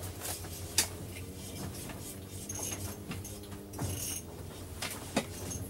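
Fishing reel being cranked to bring up a hooked fish, a light mechanical whirring broken by a few sharp clicks and knocks, over a steady low hum.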